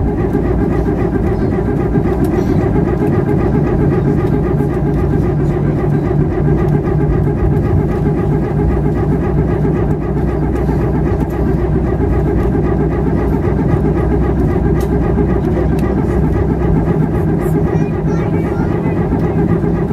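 Cabin noise of an Airbus A319 taxiing: a loud, steady drone of the running jet engines and cabin air, with a humming tone that rises a little in pitch near the end.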